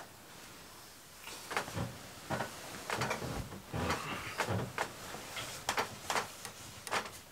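Irregular knocks, clicks and low thuds with rustling, from a person moving about in and climbing down from a wooden bunk bed and handling bedding, starting about a second in.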